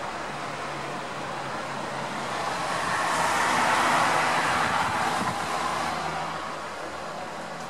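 A car passing along a wet street: tyre hiss swells to a peak about halfway through and fades away again, over steady traffic noise.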